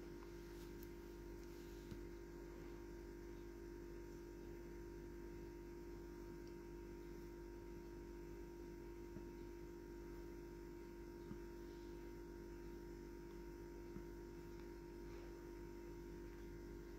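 Faint steady electrical hum, with a few soft ticks.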